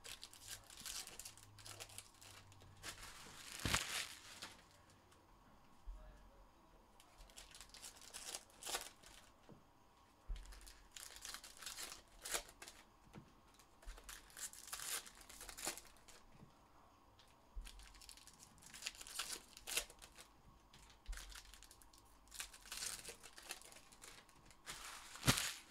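Trading card pack wrappers being torn open and crinkled, in irregular bursts every second or two, with a sharp snap near the end.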